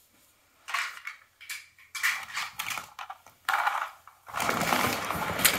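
Toy cars being handled and clattering together: a few short knocks and rattles, then denser rattling and rummaging from about four seconds in.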